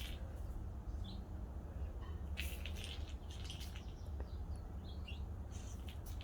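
Small plastic top clattering and skittering over a hard floor as kittens bat it around, in quick bunches of light clicks, with two faint short chirps between them over a steady low hum.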